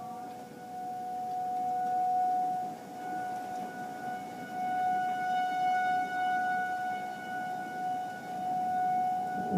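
Outdoor tornado warning siren sounding one steady tone that swells and fades in loudness, over a low rushing noise.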